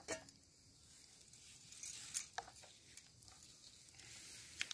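Hand mixing a rice-flour and pumpkin mixture in a steel bowl: faint scraping and squelching with a few light metallic clinks and jingles, a little louder about two seconds in and near the end.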